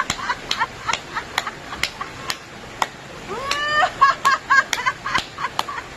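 Rhythmic sharp claps, about two a second, as a laughter-therapy exercise gets going. About three seconds in a high-pitched rising whoop is heard, followed by short cries between the claps.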